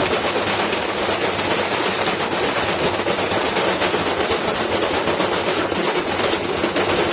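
Washing machine running with a stone loose in the drum, the stone hammering against it in a rapid, unbroken clatter.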